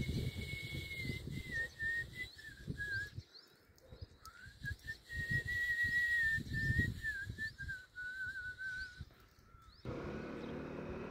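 Whistling: one clear tone held for long stretches, wavering and stepping in pitch, with a break of about a second near the middle, over uneven low rumbling. Near the end it cuts abruptly to a steady buzz.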